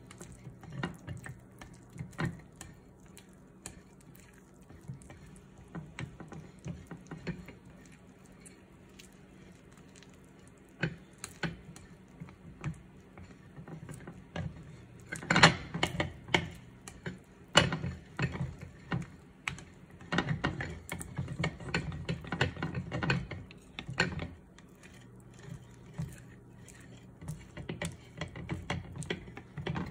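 Crepe batter being stirred in a glass bowl: irregular clicks and taps of the utensil against the glass, busiest about halfway through, over a faint low hum.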